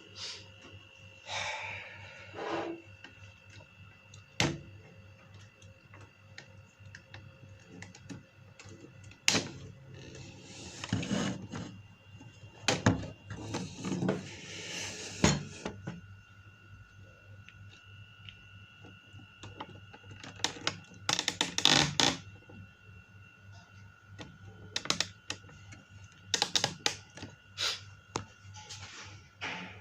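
Kitchen utensils clinking, knocking and scraping against pots and plates in irregular bursts, as food is dished up. A faint steady hum runs underneath.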